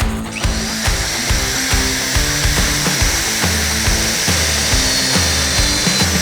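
Electric drill running steadily, mounted in a drill stand, starting about half a second in, over rock background music with a steady beat.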